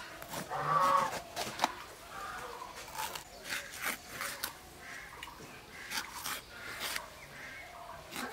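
Red bell pepper being sliced against a boti blade: a run of crisp, irregular cuts and clicks. A chicken clucks briefly about half a second in, the loudest sound.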